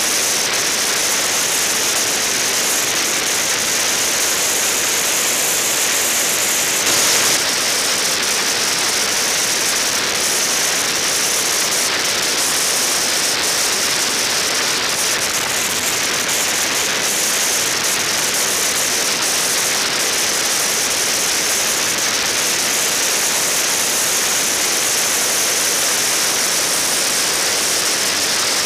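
Steady rushing hiss of wind and road noise picked up by a camera riding on a moving bike, with no engine note to be heard. It gets slightly louder about seven seconds in.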